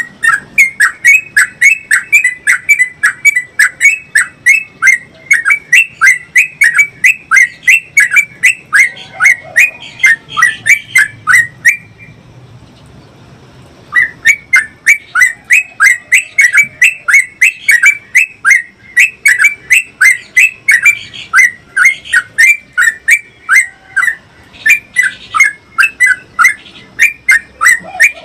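Yellow-vented bulbul (trucukan) singing a long, fast run of repeated sharp chirping notes, several a second, the rolling 'ropel' song; it breaks off for about two seconds near the middle and then resumes.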